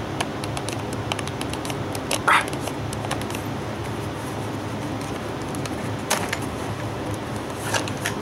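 Plastic clicks and clacks from a Kamen Rider Ryuki Legend Series toy belt buckle being handled, the loudest about two seconds in and two lighter ones near the end, over a steady low background hum.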